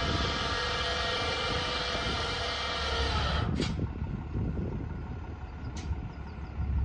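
A steady mechanical hum with a whine in it, from the truck and car-hauler trailer rig, cuts off about three and a half seconds in with a sharp click. A low rumble continues after it, and a second click comes near the end.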